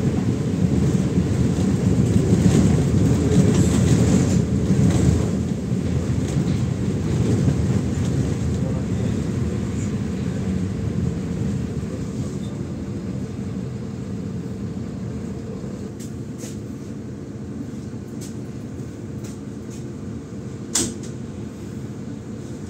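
MAZ-107 city bus heard from inside the passenger cabin: engine and road rumble, loudest in the first few seconds, fading steadily as the bus slows and comes to a stop. A single short, sharp sound rises above it near the end.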